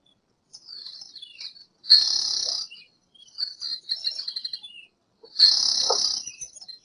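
High, bird-like chirping in quick strings of notes. Two louder, harsher calls come about two seconds in and again about five and a half seconds in.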